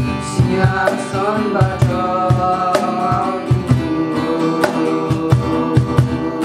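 Music with a steady drum beat, plucked strings and a melodic voice or lead line: a worship song.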